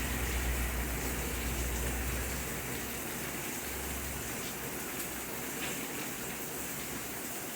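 Steady rain falling, an even hiss of many drops. A low rumble underneath fades out about two and a half seconds in and briefly comes back about a second later.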